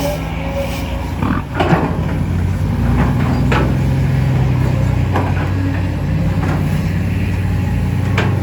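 CAT 320D2 GC excavator's diesel engine running steadily under work, with several sharp knocks from the digging, the loudest a couple of seconds in.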